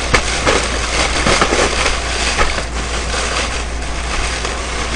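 Paper fast-food bags and plastic wrapping rustling and crinkling as they are handled and unpacked, with irregular small crackles over a steady low hum.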